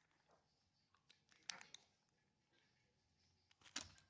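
Near silence with a few faint clicks and taps, one about a second and a half in and another near the end.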